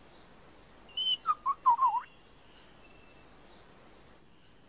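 Male superb lyrebird singing one short phrase about a second in: a brief high whistle, then a quick run of lower, wavering whistled notes. Faint chirps of other birds sound in the background.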